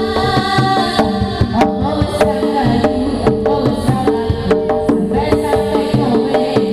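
Live East Javanese jaranan–bantengan accompaniment: kendang hand drums keep a steady rhythm under gamelan gongs and metallophones playing short repeated notes.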